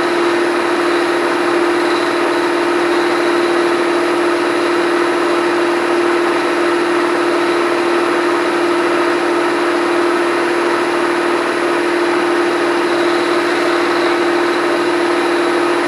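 Milling machine spindle running steadily with an end mill turning, a constant hum with one strong steady tone; no cutting is heard while the table is positioned.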